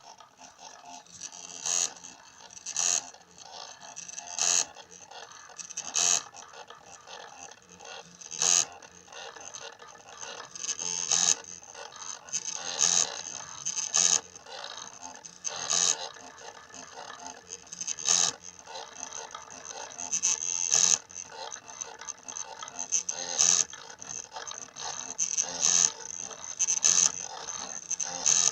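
Small DVD-drive stepper motors of a homemade Arduino/GRBL mini CNC plotter, run by A4988 drivers, buzzing and whining in short irregular bursts as the axes move, with a steady high-pitched hum between the moves.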